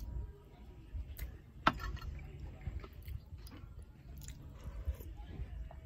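A person chewing rice close to the microphone, with small wet mouth clicks and one sharp click about a second and a half in.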